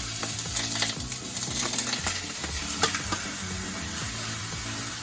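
Seasoned chicken pieces sizzling in hot olive oil in a frying pan, with a run of short clicks and scrapes from a utensil against the pan in the first three seconds, the sharpest about three seconds in.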